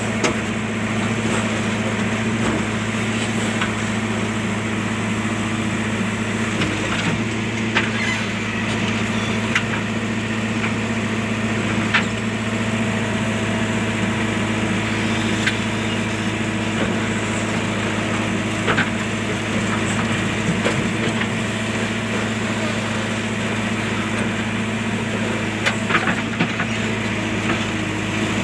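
A JCB's diesel engine running steadily at a constant speed, with occasional short clicks and knocks over it.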